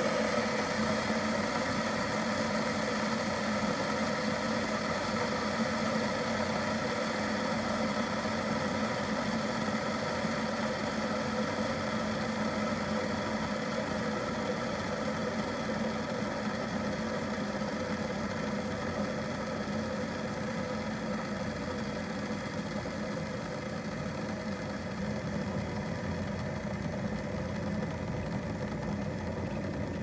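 RAF stainless-steel electric kettle heating water, a steady loud hiss and drone from the element and water, easing off slightly towards the end.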